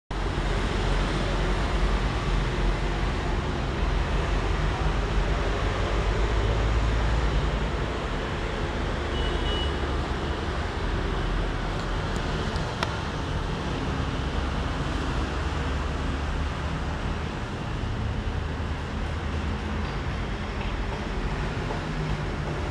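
Steady low rumbling background noise, with one faint click about halfway through.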